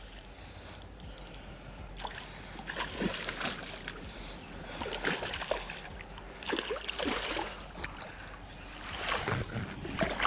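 Water splashing in irregular bursts in a shallow creek as a hooked rainbow trout thrashes at the surface while being landed.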